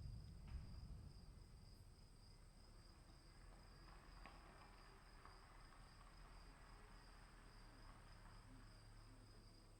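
Faint steady insect trilling, two high continuous tones, typical of crickets in a storm ambience. A low rumble fades away about a second in.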